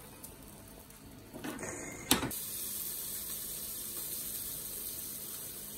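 Hot broth pouring from a saucepan into a bowl of noodles in a steady stream. It starts a little over two seconds in, just after a sharp clink.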